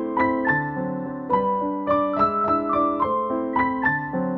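Background piano music: a melody of single notes struck one after another over sustained lower notes.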